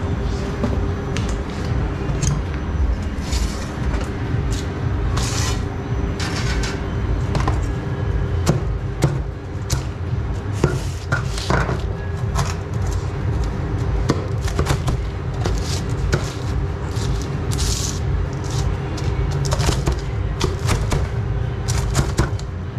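Kitchen work sounds during pizza preparation: scattered knocks, clicks and short scraping or rustling sounds over a steady low hum with a faint steady tone.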